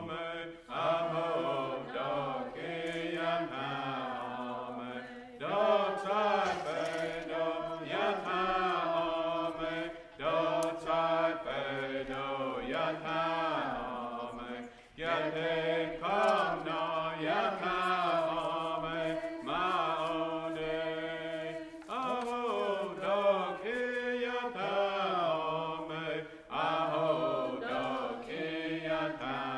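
Chanted vocal song: voices chanting repeated syllables in long, held pitched notes, phrase after phrase with short breaks between.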